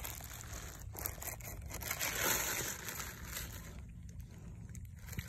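Dry leaf litter and twigs rustling and crackling on the ground, swelling about two seconds in, with a few sharp snaps.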